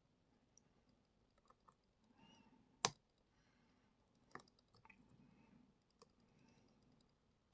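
Faint, scattered small clicks of a lock pick and tension wrench working the pins of a Brady Abus 71/40 plastic-bodied lockout padlock, with one sharper click about three seconds in.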